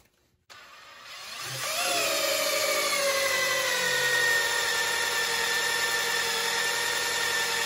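Cordless drill in reverse turning a Ford small-block V8's stock oil pump through the distributor hole, priming the engine. The drill spins up about a second in, then its whine sinks steadily lower as it bogs way down. The pump is meeting resistance, the sign that oil is being pushed through the engine.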